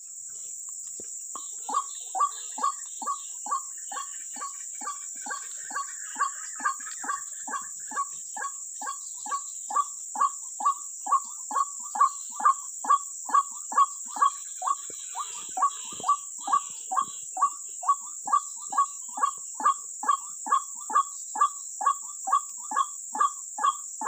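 White-breasted waterhen calling, a steady, regular run of short 'kwak' notes at about two a second that starts a second or two in and grows louder. A constant high-pitched insect drone runs underneath.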